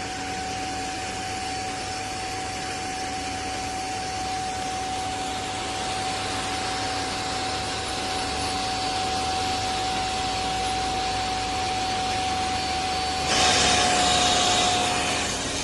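Livatro upholstery water vacuum cleaner running: a steady rushing of air with a constant whine from its motor. About thirteen seconds in, the rushing gets louder and brighter.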